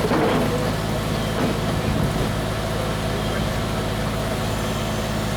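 A vehicle engine idling with a steady low hum, and indistinct voices around it.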